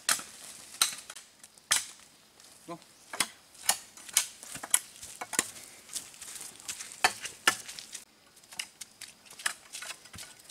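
Footsteps along a forest path, heard as a string of sharp cracks and crackles of dry twigs and leaf litter, roughly two a second and uneven in loudness.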